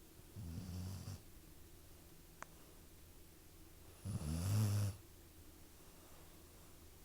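Snoring: two snores about three and a half seconds apart, the second louder and longer.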